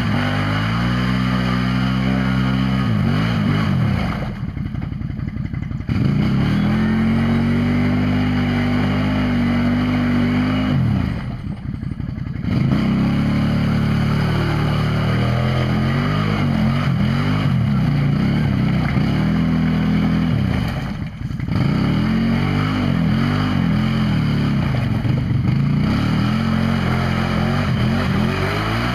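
Can-Am ATV's V-twin engine revving hard, its pitch rising and falling as the throttle is worked, with short drops off the throttle about four, eleven and twenty-one seconds in.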